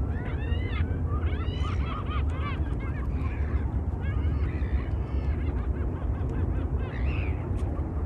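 A flock of migratory waterbirds calling: many short, pitched calls overlapping in quick runs for the first few seconds, thinning out, with another call near the end, over a steady low rumble.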